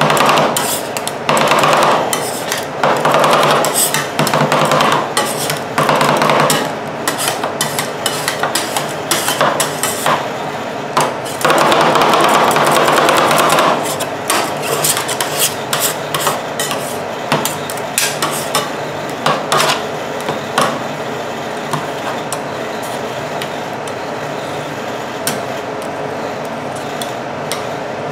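Two metal spatulas chopping and scraping strawberry yogurt ice cream on a frozen steel plate for rolled ice cream: rapid clacking of the blades against the plate, a stretch of heavier continuous scraping about twelve seconds in, then steadier scraping with fewer taps as the mixture is spread thin.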